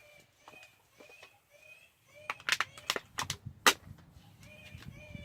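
Electronic predator caller playing a looped animal call: short high chirping squeals of the same shape, repeating roughly twice a second. Several sharp clicks a couple of seconds in, the loudest near the middle.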